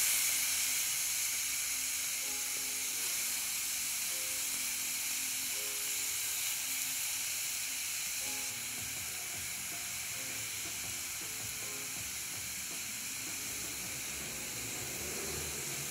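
Gochujang-marinated pork sizzling steadily on a hot ridged cast-iron grill pan, a dense even hiss of the meat's marinade and juices frying.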